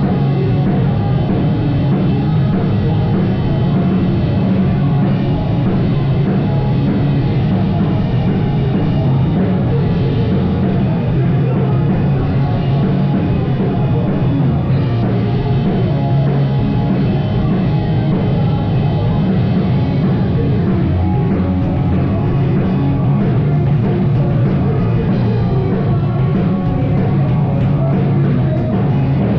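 Live rock band playing loudly: distorted guitars, bass and drum kit, recorded in the room with a narrow, slightly muffled top end.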